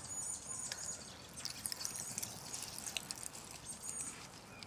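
Faint outdoor background with scattered light clicks and crackles, and a few short high chirps near the start, after about two seconds and near four seconds.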